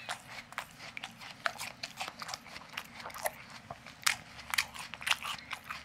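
A cat eating, crunching and chewing hard food in a quick, irregular run of crisp crunches.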